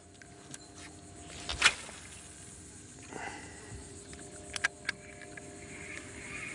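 Quiet ambience on a small fishing boat: a faint steady hum under a few sharp clicks and knocks from the angler's tackle and the boat. The loudest click comes about one and a half seconds in, and three quick ones come close together near the end.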